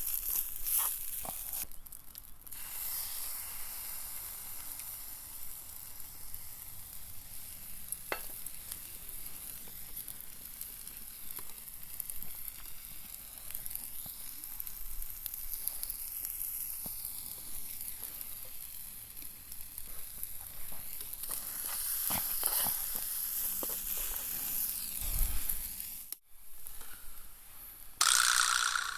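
Food sizzling in a frying pan, a steady hiss with small pops and clicks of stirring; it breaks off briefly about 26 seconds in, and a louder burst of sizzle comes near the end.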